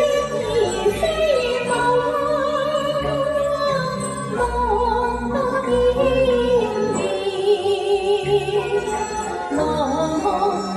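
A Chinese opera aria sung in a high voice with vibrato over instrumental accompaniment.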